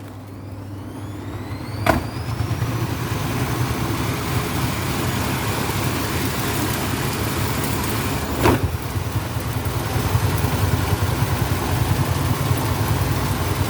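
Vestel washing machine's drum speeding up: a motor whine rises in pitch over the first few seconds, then settles into a steady loud rumble and rush, with two sharp knocks, about two seconds and eight and a half seconds in. The machine is running with heavy suds from too much detergent.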